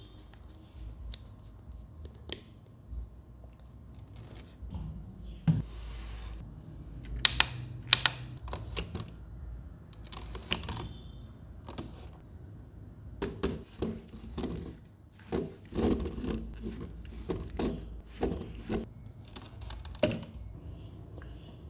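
Irregular clicks, taps and knocks of a small plastic mini fan-humidifier being handled, sparse at first and busier in the second half.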